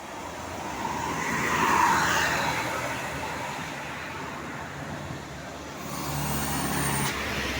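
Road vehicles passing close by. Engine and road noise swells to a peak about two seconds in and fades, then an engine hum builds again near the end.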